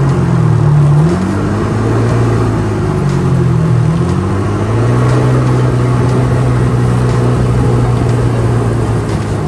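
Jet ski engine running under way. Its pitch rises about a second in, dips and comes back up around the middle, then holds steady.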